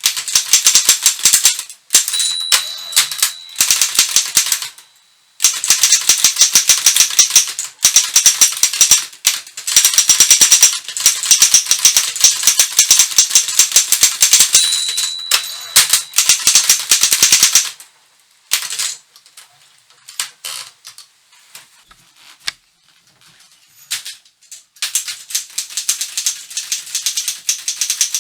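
A 1952 Continental Standard manual office typewriter typing fast, its typebars striking in rapid bursts of sharp clicks. A bell rings briefly twice, about 2 seconds in and about 15 seconds in, which is typical of the margin bell warning that the line is nearly full. From about 18 to 25 seconds there are only a few scattered clicks, and then steady typing resumes.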